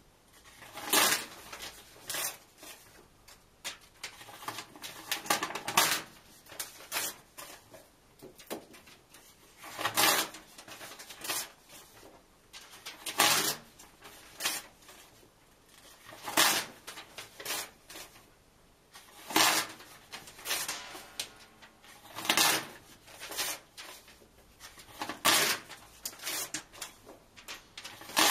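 Book pages being ripped out and torn in half: loud sharp tearing of paper about every three seconds, with softer paper rustling between the tears.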